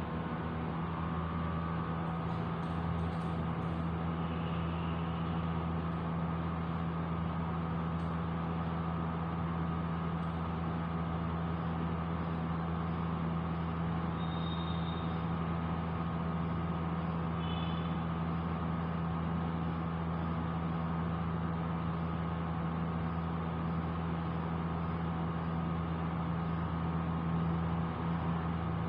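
Steady low mechanical hum over an even background noise, with a few short high-pitched tones partway through.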